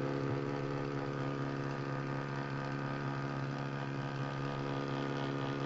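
Core Innovations wireless portable thermal printer printing, its paper-feed motor giving a steady, even hum.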